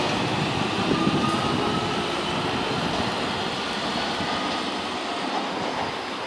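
Kobe Municipal Subway 1000-series electric train running along the track at a station, a steady rumble with a faint whine that slowly fades.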